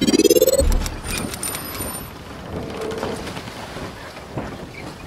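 Logo-intro sound effects: a rising whoosh that ends in a low boom under a second in, then a brief high sparkling chime, settling into a soft windy hiss with faint ticks.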